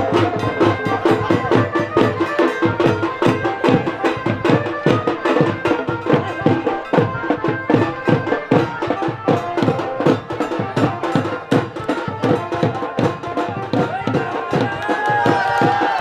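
Traditional drum music: a fast, steady drum beat with held melodic tones over it.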